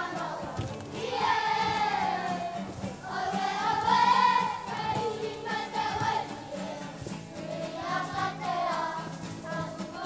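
A group of children singing a Māori song together to guitar accompaniment, in long held phrases.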